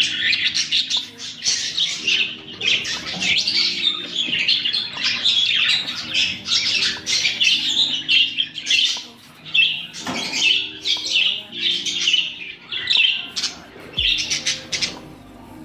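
Budgerigars chattering in their cages, a dense, continuous mix of quick chirps, warbles and squawks that thins out briefly twice.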